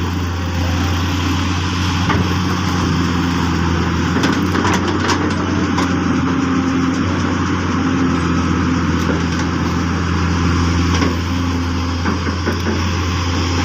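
Hyundai excavator's diesel engine running steadily, with a few light clicks and knocks over it.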